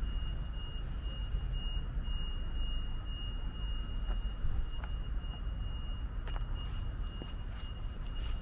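Outdoor background noise: a steady low rumble, a thin steady high-pitched tone and a few faint scattered clicks.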